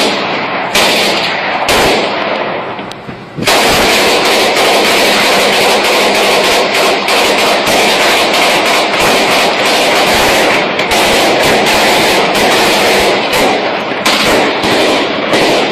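Gunfire: a few separate rifle shots, then from about three and a half seconds in, dense, near-continuous rapid fire from several guns.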